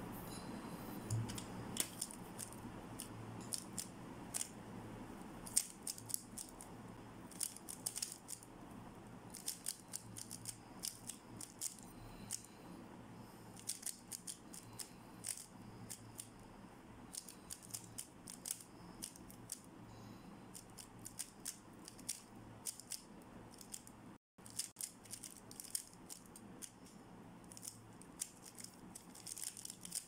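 MoYu RS3M 2020 speed cube being turned fast by hand during a timed solve: runs of quick plastic clicks and clacks as the layers snap round, with short pauses between runs.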